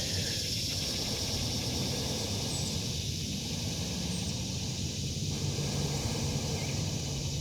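Steady forest ambience dominated by the continuous high-pitched drone of cicadas, with a low steady hum underneath.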